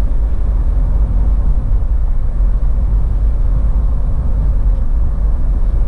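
Steady low rumble of a campervan driving along a road, heard from inside the cab: engine and tyre noise with no change in speed.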